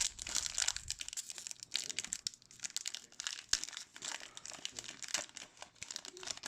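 Wrapper of a hockey trading-card pack crinkling as it is torn open and handled, with a rapid, irregular crackle.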